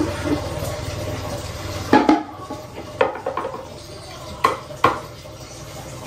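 Pestle knocking and grinding in a shallow mortar (Indonesian ulekan and cobek), crushing seasonings: several sharp knocks, the loudest about two seconds in, over a steady low hum.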